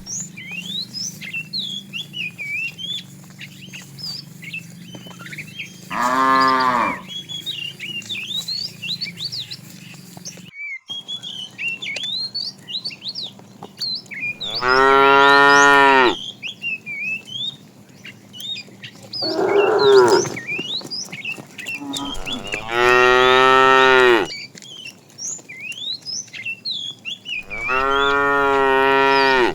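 Cows mooing: five long calls a few seconds apart, the fourth one ragged and higher than the rest.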